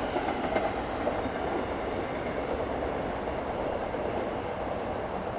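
SEPTA Silverliner IV electric commuter train rolling away down the line, its steady rumble slowly fading into the distance.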